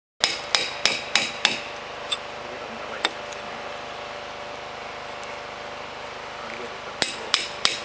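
Hammer striking a caulking iron to drive felt/tow fibre into the seam between logs of a log wall. Five quick sharp blows at about three a second, a couple of lighter taps, then a pause and three more blows near the end, over a faint steady hum.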